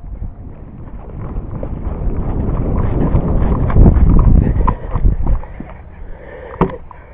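Running footsteps on grass with heavy thumping and rumble from the moving body-worn microphone, building to a loud peak and fading out, then one sharp knock near the end.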